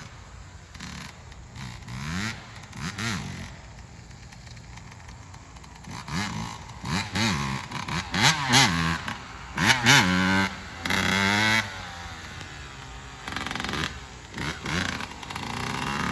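Yamaha YZ125 two-stroke single-cylinder dirt bike engine revving as the bike is ridden, its pitch rising and falling with repeated throttle openings. It is loudest through the middle of the stretch, where it holds a high rev for about a second before dropping off.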